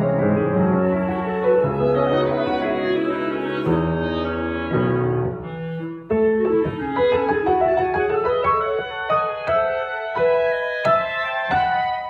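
Chamber ensemble of flute, oboe, clarinet and grand piano playing contemporary classical music. Held wind chords sound over the piano at first, then from about six seconds in quick, detached piano notes run under a sustained higher line.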